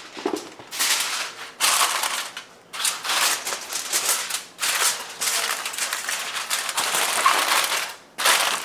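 Aluminium kitchen foil being pulled off the roll, torn and folded, crinkling in a run of rustling bursts with short pauses between.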